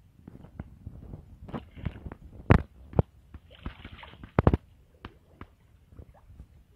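Shallow water sloshing and splashing as someone wades and gropes by hand through a flooded rice paddy, with a series of sharp knocks and splashes, the loudest about two and a half and four and a half seconds in.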